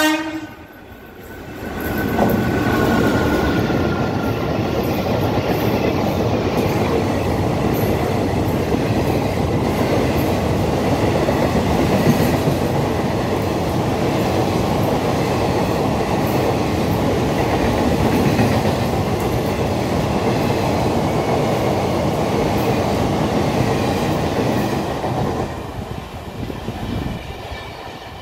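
Express train hauled by a WAP4 electric locomotive passing at speed: a loud, steady rumble of coaches' wheels on the rails that lasts about twenty seconds, then fades as the train draws away. The horn's last note cuts off right at the start.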